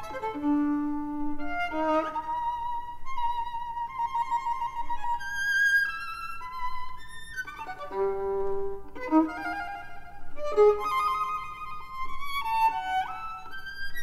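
Violin playing an instrumental interlude of contemporary chamber music: a string of short melodic phrases and separate notes, high and low.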